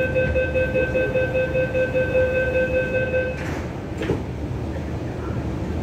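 MTR Q-Train door-closing warning, a steady high tone lasting about three and a half seconds, followed by the train's sliding passenger doors closing with a short rush and a thump about four seconds in. A low, steady hum from the train sits underneath.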